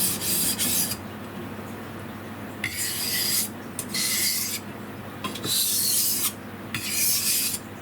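Kitchen knife edge being sharpened on a Shapton Kuromaku #1000 medium-grit whetstone: the steel scrapes across the stone in about five separate strokes of half a second to a second, with short pauses between them.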